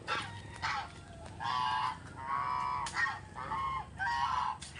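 Farmyard birds calling repeatedly: a run of about seven short, clear-pitched calls, with one longer call near the middle.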